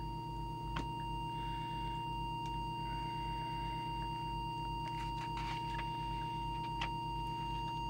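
Steady, unwavering test tone from an audio signal generator, injected into a CB radio to set its transmit deviation, with a low hum underneath.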